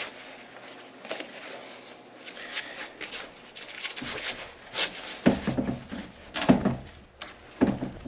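Workshop handling noises: a series of separate knocks and scrapes, heavier ones with more low thump about five, six and a half, and seven and a half seconds in.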